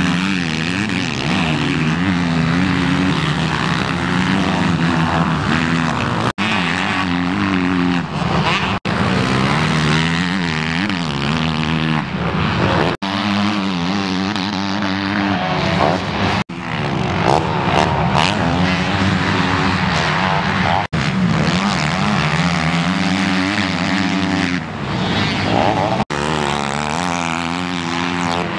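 Motocross dirt bike engines revving up and falling back as riders go over the jumps, the pitch rising and dropping again and again. The sound cuts out for an instant several times where short clips are joined.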